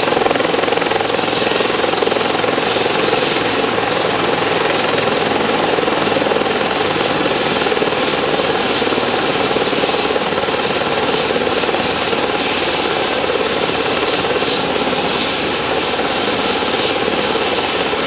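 Helicopter sitting on the deck with its engines running and main rotor turning: a steady loud rotor-and-turbine noise with a thin high turbine whine that dips slightly about six seconds in.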